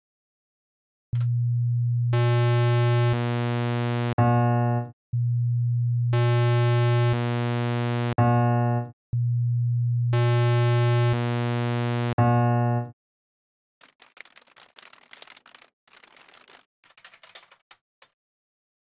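Software synthesizer playing the note B2 (about 123 Hz) for one second each as a pure sine wave, then a buzzy square wave, then a sawtooth (ramp) wave, followed by a sampled piano B2 that decays; the four-sound sequence plays three times. Faint computer-keyboard typing follows near the end.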